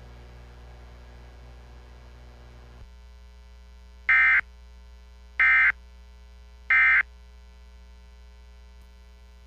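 Three short Emergency Alert System end-of-message data bursts, the digital warble of the SAME code, each about a third of a second long and about 1.3 s apart, marking the end of the alert. A steady electrical hum runs underneath.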